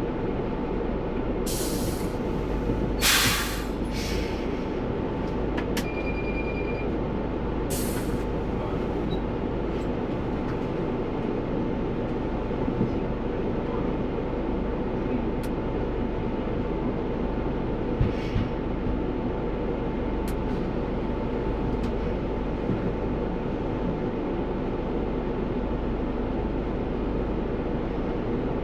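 A London bus under way, heard from the driver's cab: steady engine and road noise with a faint steady whine. In the first eight seconds there are several short bursts of hiss, and there is a brief high beep about six seconds in.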